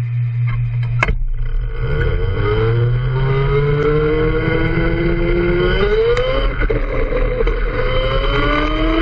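Rental go-kart's motor pulling away from a standstill: after a steady low hum and a click about a second in, its pitch rises from about two seconds as it accelerates. It levels off, climbs again around the middle, dips briefly, and rises once more near the end.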